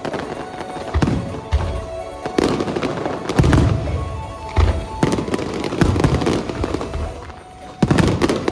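Aerial fireworks shells bursting one after another, about a dozen booms with deep thuds and crackle between them, thickest about two and a half to five seconds in and again near the end. Music plays underneath.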